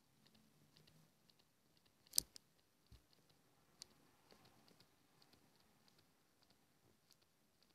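Near silence with faint, scattered clicks and taps of a stylus on a pen tablet during handwriting, one sharper click about two seconds in.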